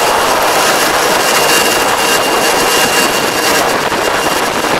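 Tractor engine and a rear-mounted Kobashi XRS751 levee-plastering machine running while it works soil, a loud steady mechanical noise with a thin steady high whine over it.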